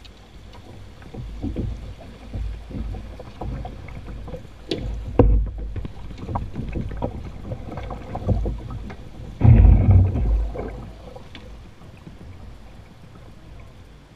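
A canoe being poled through a shallow, rocky riffle: irregular clicks and knocks of the pole and hull, with low thumps and the rush of the river. A louder rumbling burst comes about nine and a half seconds in and lasts about a second.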